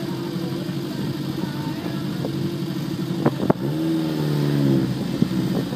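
Nissan Sunny van's engine running at the drag-strip start line, with two sharp cracks about three and a half seconds in followed by a short throttle blip that rises and falls over about a second.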